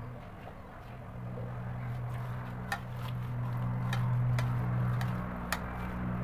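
Boiled pangas fish being squeezed and mixed by hand with spices and chopped greens in a ceramic bowl, with a few sharp clicks against the bowl. A steady low mechanical hum runs underneath and is the loudest sound.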